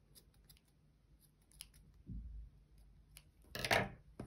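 Scissors snipping off the long yarn ends of a knotted crochet motif: a few light clicks of the blades, a soft thump about two seconds in, and a louder cut near the end.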